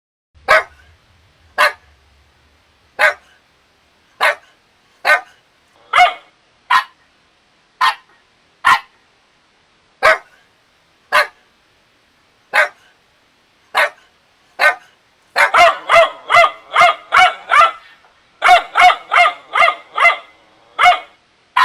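Puppy barking: short, sharp single barks about a second apart, then from about fifteen seconds in, quick runs of barks at about five a second.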